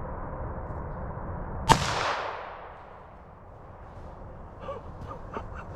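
A single rifle shot less than two seconds in, its report echoing and fading away over about a second. A few faint clicks follow near the end.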